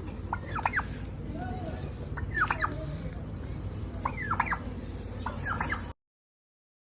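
Turkey gobbling four times, each a quick, rattling burst of warbles about a second and a half to two seconds apart. The sound cuts off abruptly near the end.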